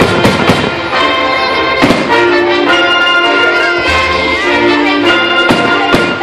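Orchestral music led by brass, holding long notes, with a few sharp bangs over it.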